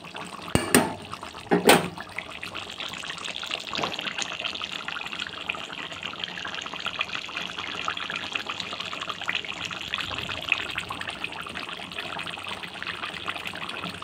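Chicken curry with potatoes and peas bubbling steadily in a metal pot, a dense crackle of small pops. Two sharp knocks of a spatula against the pot come in the first two seconds.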